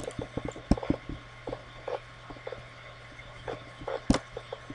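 Scattered soft clicks and ticks of a computer mouse being scrolled and clicked, with a couple of louder clicks about three-quarters of a second and four seconds in, over a steady low electrical hum.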